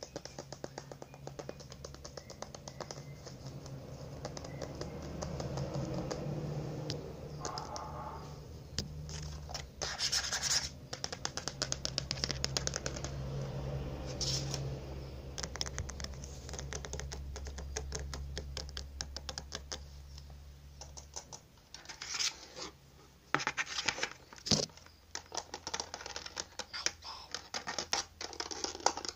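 Long fingernails tapping and scratching on an object close to the microphone: a rapid, uneven run of small clicks and scrapes, with louder flurries about a third of the way in and again near the end.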